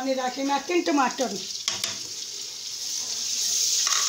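Chicken frying in oil in a pot, sizzling and being stirred with a wooden spoon, with a couple of sharp knocks about halfway through. The sizzle grows louder in the second half as chopped tomatoes go into the hot pot.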